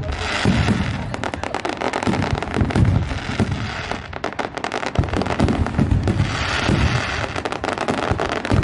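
Fireworks display in a dense barrage: aerial shells bursting with repeated low booms over a continuous rapid crackle.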